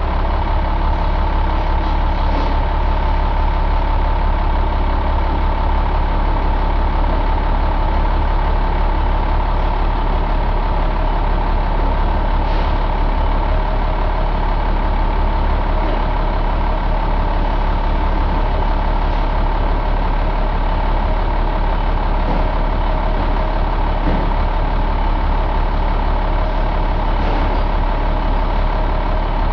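1990 Ford 7.8-litre inline-six diesel truck engine idling steadily, with a steady high whine over the engine note.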